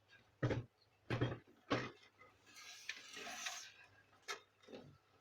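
Plastic parts of a laser printer being handled and fitted during reassembly: a string of short knocks and clicks, with a longer scraping rustle in the middle.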